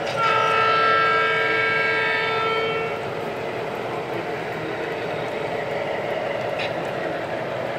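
Sound-equipped O scale model locomotive blowing a multi-tone horn, one long blast of about three seconds that cuts off, over the steady running sound of the train on the layout.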